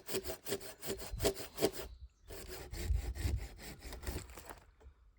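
Hand saw cutting through a piece of wood for kindling in quick, even back-and-forth strokes; it stops briefly about two seconds in, starts again, and stops near the end.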